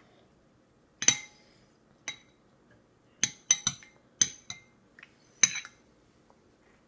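A spoon clinking and knocking against a child's feeding bowl, about nine irregular strikes with a short ring, the loudest about a second in and near the end.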